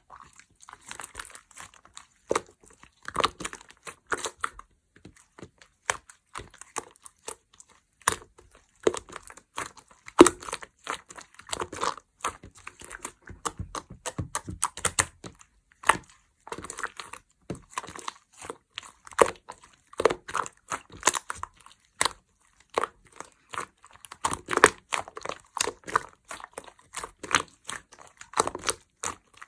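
Orange slime being squished, pressed and pulled by hand, giving an irregular run of sharp pops and crackles.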